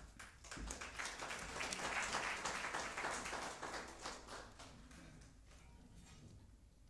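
Audience applause, building over the first two seconds and dying away from about four seconds in.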